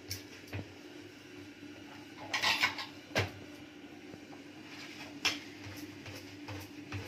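Stainless-steel mesh strainer of raw mutton pieces clinking and knocking as hands turn the meat. There is a short clatter about two and a half seconds in, then single sharp knocks a little after three seconds and again after five. A steady low hum runs underneath.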